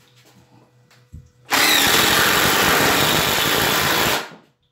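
Cordless impact driver hammering as it drives a square-drive screw into wood. A dense rattle of rapid impacts starts about a second and a half in, runs for about two and a half seconds and then stops.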